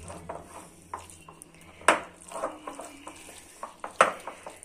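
Hand mixing a spinach and gram-flour paste in a glass bowl: soft squishing and scraping of fingers through the mix, with a few sharp clicks on the glass, the loudest about two seconds in and near the end.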